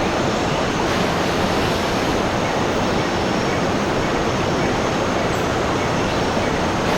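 Steady rushing water, an even, unbroken rush with no rise and fall.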